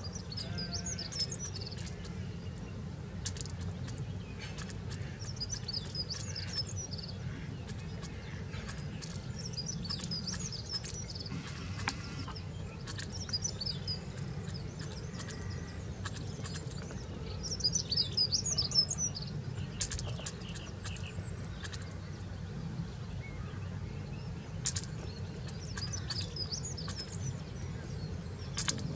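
A small songbird singing short, high, warbling phrases every few seconds, loudest a little past halfway, over a steady low background rumble. Sharp clicks come throughout from the hen pheasant's beak pecking grain in a plastic bowl.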